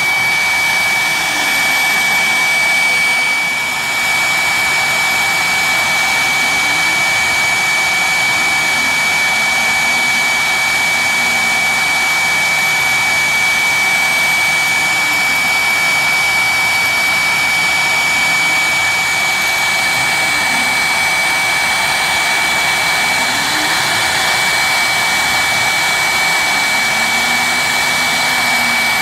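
Spindle of a mini CNC engraving machine running at high speed, a steady high-pitched whine over a hiss, as its 0.5 mm endmill mills a copper sheet.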